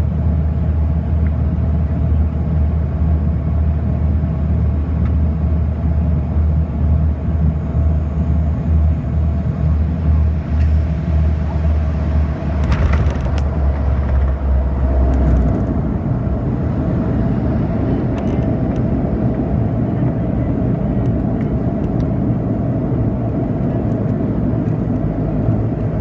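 Cabin noise of a Dash 8 turboprop landing and rolling out: a loud, steady low propeller drone. About fifteen seconds in, the drone changes to a rougher rumble as the aircraft slows on the runway.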